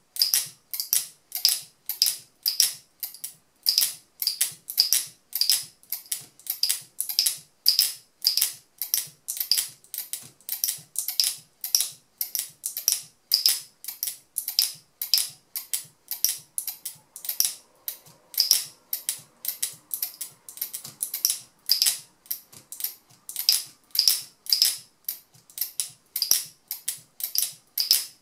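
Turquaz speargun camera mount's locking mechanism snapped shut and released over and over on the speargun barrel, making a steady run of sharp clicks, about two to three a second.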